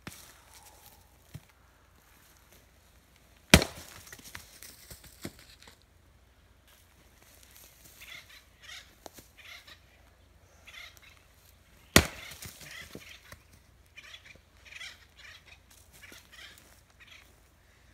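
Firewood being split by hand: two sharp strikes of a splitting tool into wood rounds, about eight seconds apart, each followed by smaller knocks as the split pieces fall. Lighter rustling and knocking fill the time between the strikes.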